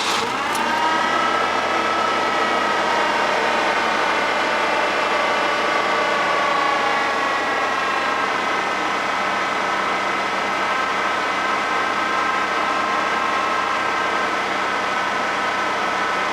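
Ford 4.9 L (300 cu in) fuel-injected inline-six in an F-150 running at a raised idle just after starting, not yet idled down, with a steady whine over the engine note. The throttle position sensor has just been replaced.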